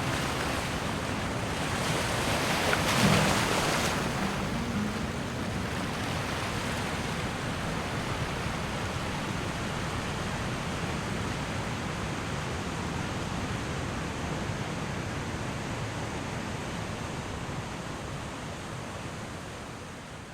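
Sea waves washing in on the shore: a continuous surf hiss with one louder wave breaking about two to four seconds in, fading out near the end.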